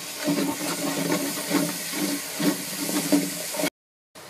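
Garlic and ginger paste sizzling in hot oil and ghee with fried onions and spices in a pot, stirred with a spoon, over a steady low hum. The sound cuts off suddenly near the end.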